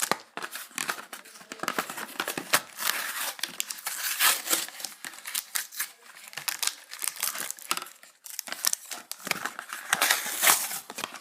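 Plastic blister pack being crinkled, bent and torn open by hand: an irregular run of crackles and rips, with a short lull about eight seconds in. The blister is hard to open.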